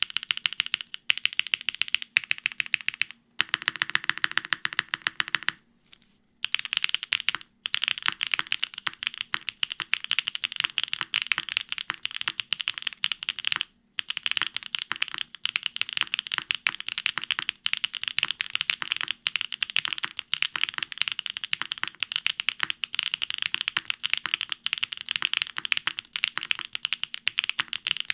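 Fast, continuous typing on a Neo75 CU mechanical keyboard with Kailh linear switches, a polypropylene plate, KKB Signet keycaps, gasket mount and no foam: a dense stream of key clacks with a few brief pauses. From about three to five and a half seconds in the keystrokes sound fuller, with more low end.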